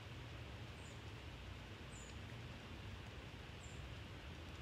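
Quiet outdoor ambience: a steady low rumble and soft hiss, with a faint short high chirp from a small bird repeating about every second and a half.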